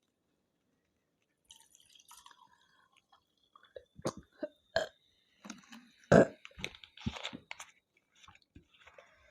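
Close-miked mouth and throat sounds of a person drinking Pepsi: a string of short gulps, clicks and small burps, the loudest about six seconds in.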